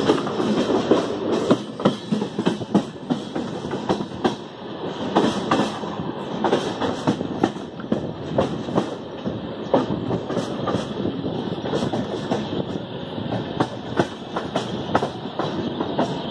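Passenger train wheels running over rail joints and the points of a station approach: a steady rolling rumble broken by a quick, irregular clatter of sharp clicks.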